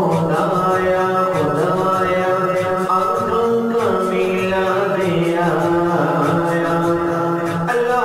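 Islamic devotional vocal music (naat) between sung lines: a wordless voiced melody held on long notes that step from pitch to pitch over a steady low drone.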